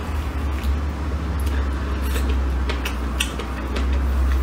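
Close-miked chewing of food with the mouth closed: soft wet mouth clicks scattered irregularly through, over a steady low hum.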